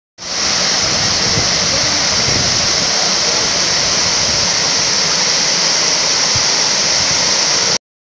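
Waterfall pouring over rock ledges into a plunge pool, a steady rushing of water that cuts off suddenly near the end.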